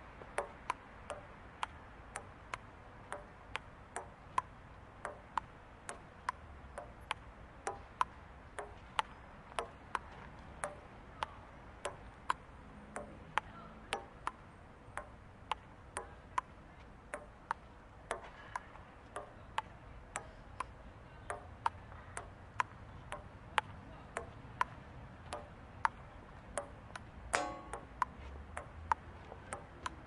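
Table tennis rally: a ping-pong ball clicking off table and paddles about twice a second in a steady back-and-forth, some hits louder than others, over a faint low rumble.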